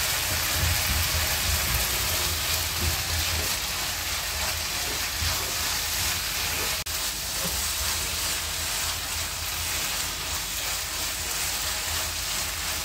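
Shredded cabbage, carrot and onion filling sizzling in a non-stick frying pan while a spatula stirs it, a steady frying hiss with a low hum underneath.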